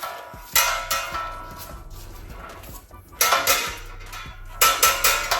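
Metal twin-plate clutch parts clinking and rattling against each other as they are handled and lined up on the engine, in three short bursts with a metallic ring.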